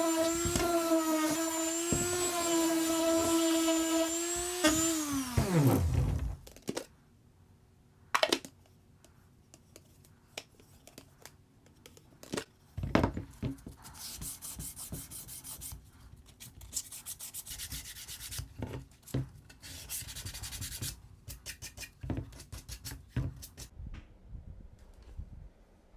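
A power tool's electric motor runs at a steady pitch, then is switched off about five seconds in and winds down. After it, rubbing on wood comes and goes, with a few knocks.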